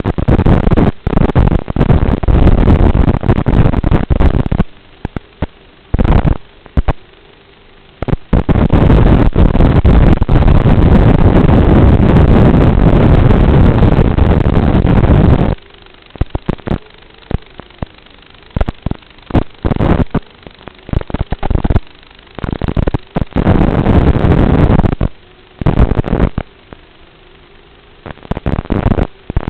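Loud wind buffeting the microphone in rough gusts several seconds long, the longest running from about eight seconds in to past the middle. Between gusts a faint steady hum continues underneath.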